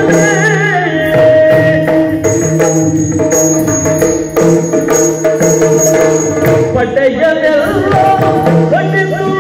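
Yakshagana bhagavata singing over a steady drone, with chande and maddale drums beating loudly throughout. The voice comes in just after the start and again from about seven seconds on, while the middle stretch is mostly drumming.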